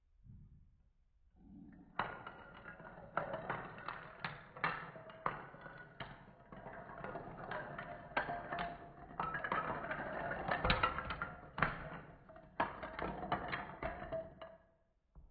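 A long line of wooden plank blocks set up as dominoes toppling in a chain reaction on a hardwood floor: a continuous clatter of rapid wood-on-wood clicks and knocks that starts about two seconds in and stops shortly before the end.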